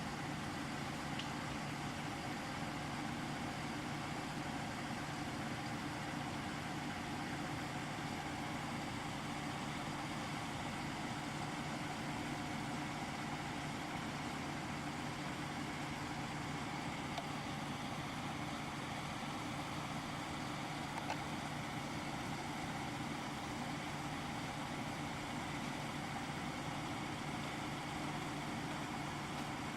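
An engine idling steadily, with an even, unchanging hum.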